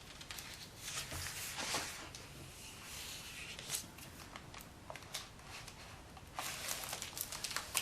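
Quiet rustling of paper with scattered light clicks: the pages of a picture book being handled and turned.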